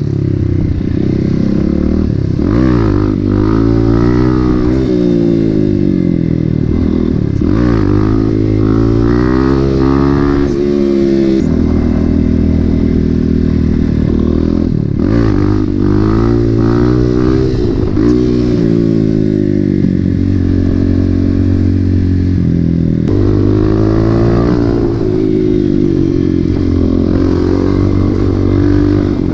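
Motorcycle engine running under way, its pitch climbing as it revs and dropping back again and again, with steps where the gears change.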